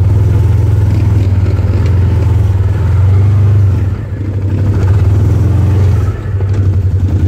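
Side-by-side off-road vehicle's engine running under throttle while driving, heard from the cab, loud and steady with two brief dips in the engine note, about four and six seconds in.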